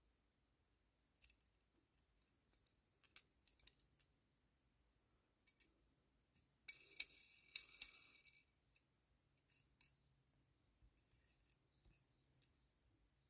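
Near silence, broken by faint clicks and taps of fingers handling a small die-cast toy van, with a louder scratchy rustle lasting under two seconds around the middle as the toy is turned over in the hands.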